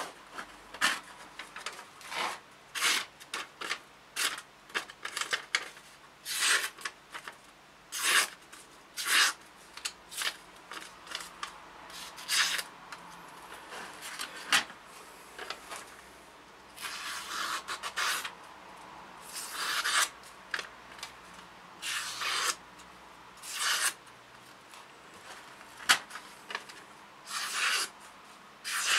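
Hand-made hunting knife slicing through sheets of paper: a run of short, crisp cuts at uneven intervals, a few of them longer drawn slices. Clean paper cuts like these show a sharp edge.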